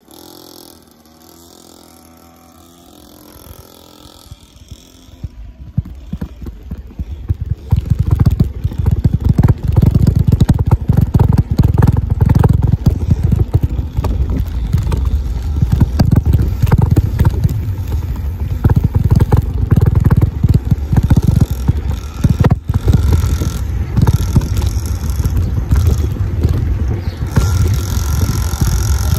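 Loud low rumbling and buffeting from a moving bicycle, building up a few seconds in, with a Lenka 50 cc mini trail motorbike's small engine running in the distance.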